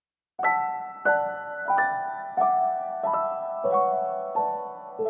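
Background piano music starting a moment in, with soft chords struck evenly about every two-thirds of a second, each ringing out before the next.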